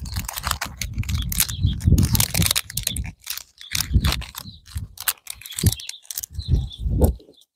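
Close-up handling of a small plastic pack of fishing-float adapters and the tiny adapter parts: an irregular run of sharp plastic clicks and rattles with dull knocks, with short pauses.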